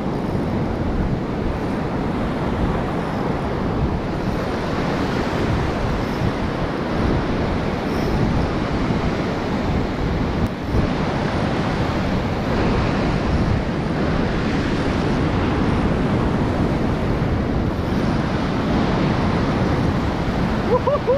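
Ocean surf breaking and foam washing in over the sand, with wind on the microphone: a steady rushing noise.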